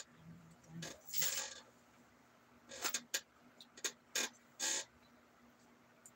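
Plastic bag being handled, rustling and crinkling in a string of short bursts that stop about five seconds in.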